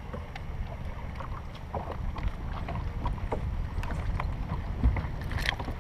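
Boat on the water: a steady low rumble with scattered light clicks and taps.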